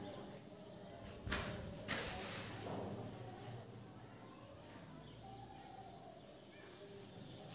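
Faint high insect chirps repeating evenly, about three every two seconds. Two soft knocks come a little after one second and at two seconds in.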